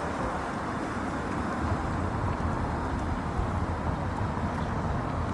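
Hankai Tramway streetcar running, a steady low rumble with no distinct events.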